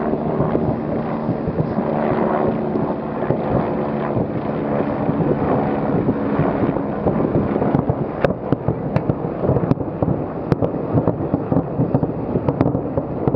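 Steady low hum under rushing wind noise, then from about eight seconds in, a string of sharp, irregular fireworks bangs and cracks.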